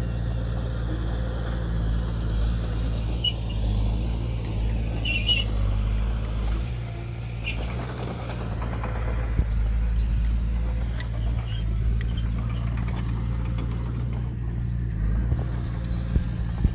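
Diesel engine of earthmoving machinery running steadily under a constant low drone, with a few brief higher squeaks and clicks over it.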